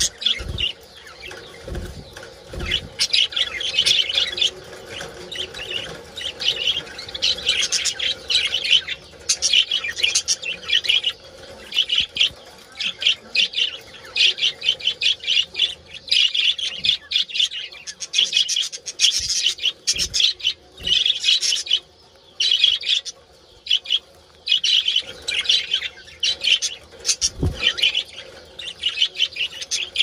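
Colony of budgerigars chattering and warbling, the mating calls of a breeding flock: a dense run of fast, high chirps with brief pauses now and then.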